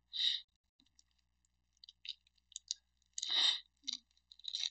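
A man sneezing repeatedly with allergies: a short sneeze right at the start, a fuller one about three seconds in, and another just before the end, with faint small clicks in between.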